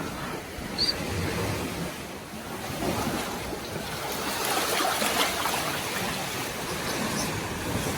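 Sea surf washing onto the beach, swelling and easing. A brief high chirp about a second in.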